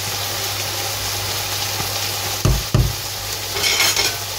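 Chicken fillets sizzling as they fry in olive oil in a frying pan, with a utensil stirring sauce in a saucepan. Two dull knocks come about two and a half seconds in, and a brief clatter of a utensil near the end.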